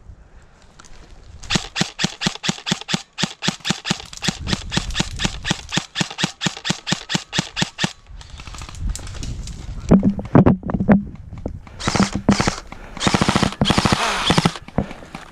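Airsoft gunfire: a long string of evenly spaced shots, about six a second, for several seconds. After a pause come a few faster, denser bursts of fire near the end.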